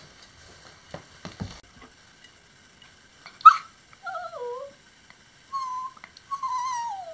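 Yorkshire terrier whining: a sharp yelp about halfway through, then three high whines, two of them sliding down in pitch. A few soft knocks come before the yelp.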